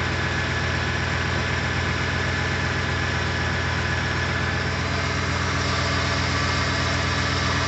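Freshly rebuilt Ford 5.4L three-valve V8 idling steadily, very quiet, on its first run after the rebuild.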